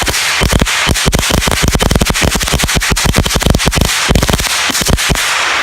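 A string of firecrackers going off in a rapid, irregular run of sharp cracks, several a second, that stops just before the end.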